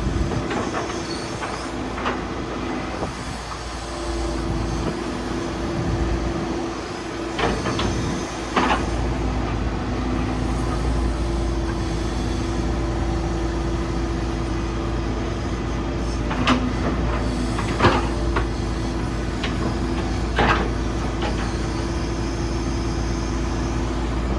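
Hitachi ZX135US-3 hydraulic excavator's diesel engine running steadily while the machine is worked, with a scattering of sharp clunks and knocks from the moving boom, arm and bucket.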